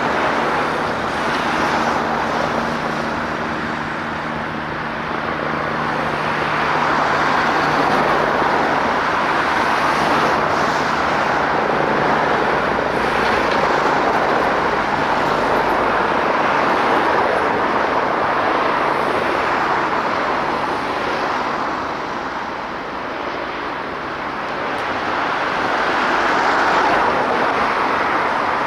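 Road traffic passing steadily, a continuous rush of tyres and engines that swells and fades several times as vehicles go by.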